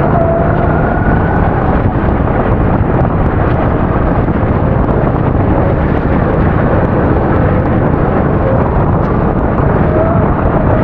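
A 270cc racing kart's engine running under race load, its pitched note partly buried in a loud, steady rushing noise. The engine note is clear at first, sinks under the noise about two seconds in, and stands out again near the end.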